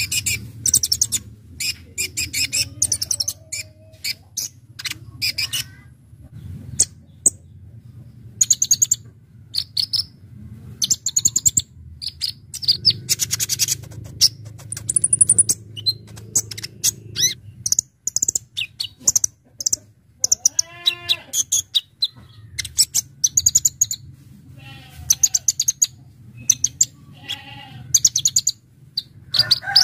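A kolibri ninja (konin) sunbird singing vigorously in quick bursts of high, sharp chirps and rapid trills, one burst after another with short gaps between them.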